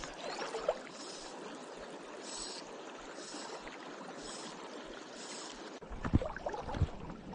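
South Platte River current flowing and rippling steadily, with a few sharp knocks about six seconds in.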